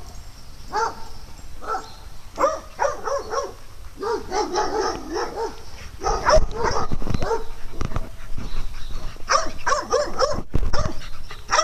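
Dogs barking in quick runs of short barks and yips during play, with the busiest run in the middle and another near the end.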